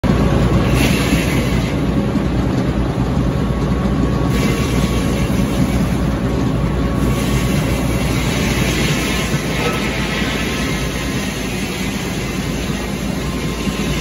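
Frick circular sawmill running on its Caterpillar engine power unit, a loud, steady mechanical drone with no log in the cut.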